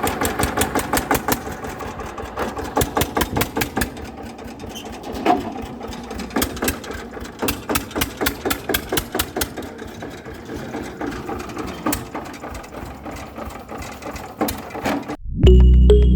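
Small electric motor of a homemade miniature machine running, with a steady rapid clicking of about four clicks a second from its gearing.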